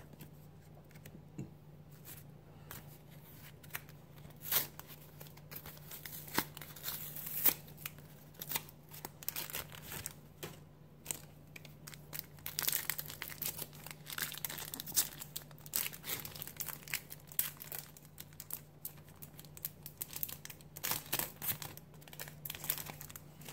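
Foil Pokémon booster-pack wrapper being torn open and crumpled by hand: irregular crinkling and crackling, busiest about halfway through and again near the end.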